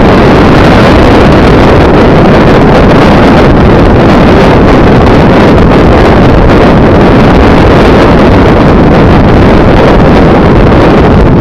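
Loud, steady wind rush buffeting the microphone of a camera on a moving vehicle, mixed with engine and road noise, with no let-up.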